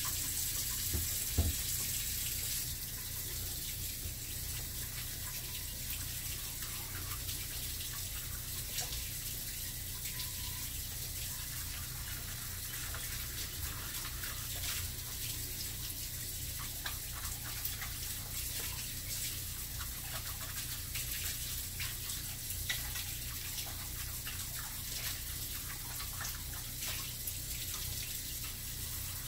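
Kitchen sink tap running while a measuring cup is washed by hand, a steady splashing hiss with a few faint clinks.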